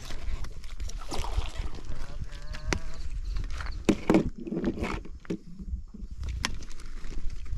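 Water splashing and sloshing as a hooked fish is fought on a fishing pole, with scattered sharp clicks and knocks and a steady low rumble.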